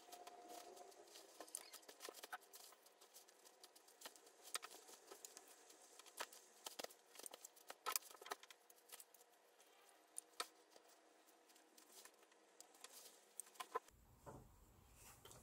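Faint rustling of wool fabric with scattered small clicks as waistband elastic is worked through the casing with a pin, the cloth bunched and pushed along by hand.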